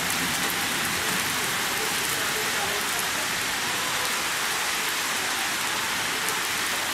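Heavy thunderstorm rain pouring steadily, an even hiss with no break.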